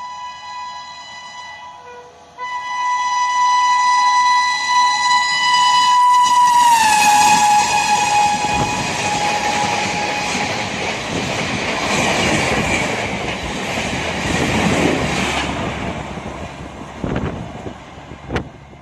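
Horn of an Indian Railways WAP7 electric locomotive giving a long steady blast as the train approaches at speed, growing loud a couple of seconds in. Its pitch drops as the locomotive passes, the horn carrying on lower for a few more seconds while the passing train's rush of wheels on rail swells and then fades away.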